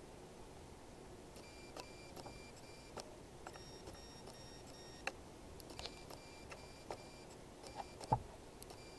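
Pages of a paperback book being flipped through by hand: soft paper flicks and rustles about once a second, with a louder page slap just after 8 s.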